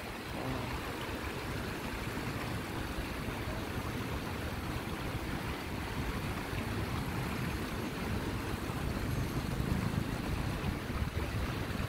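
Shallow river water rushing over rocks and a small cascade, with wind buffeting the microphone, the low rumble growing a little stronger toward the end.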